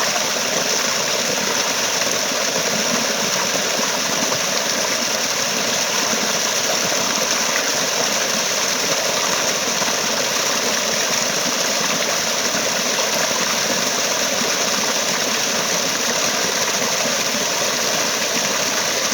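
Running water, such as a stream or small waterfall, rushing steadily with no breaks, with a strong high hiss.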